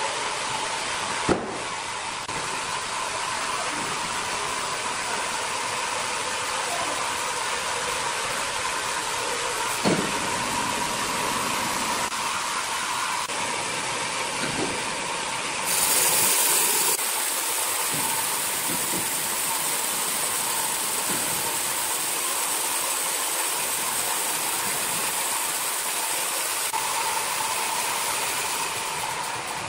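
Large horizontal band sawmill running, its blade cutting lengthwise through a big red hardwood log: a steady hiss over a steady hum. Two sharp knocks, and a louder, brighter hiss for about a second about halfway through.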